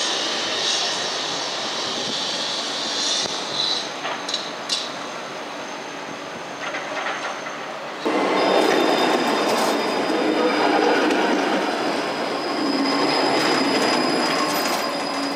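A HermeLijn low-floor tram passing close by, its wheels rumbling on the rails with a steady high electric whine over the top. This comes in abruptly about eight seconds in. Before it there is only a steady hiss of city noise heard from high up, with a few sharp clicks around four seconds in.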